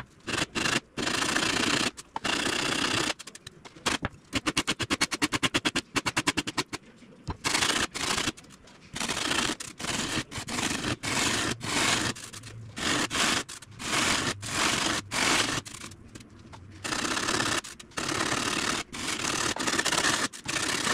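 Sanding block with sandpaper rubbed back and forth over a blue-foam cowl plug in long rasping strokes. About four seconds in there is a run of quick short strokes for a few seconds, then long strokes again.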